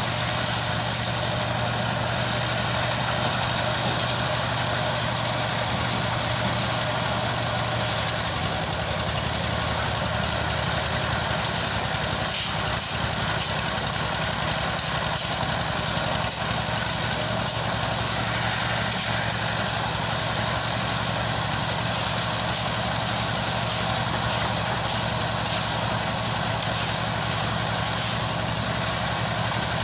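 A heavy engine on a construction vehicle runs steadily at idle, with its note shifting slightly about a third of the way through. Many quick, sharp clicks come in over the second half.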